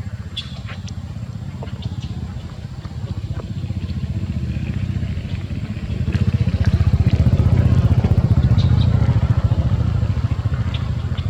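An engine running with a steady low pulsing rumble that grows louder about six seconds in, with a few faint high chirps above it.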